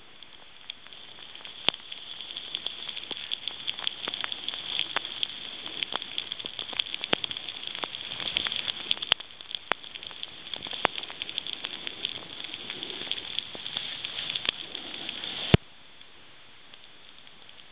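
Snowboard sliding and carving through snow, heard as a rough crackling hiss full of small clicks. A sharp click comes near the end, after which only a faint even hiss is left.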